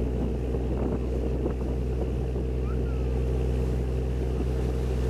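Sightseeing boat's engine running steadily under way, a constant low drone.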